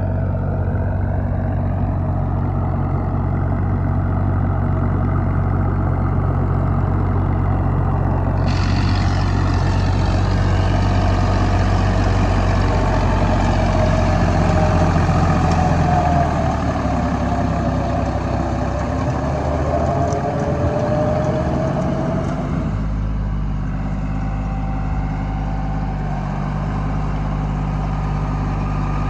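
Deutz-Fahr Agrolux 50 tractor's diesel engine running steadily under load as it drives a rotavator through wet paddy soil. A higher whine wavers up and down in pitch through the middle of the clip.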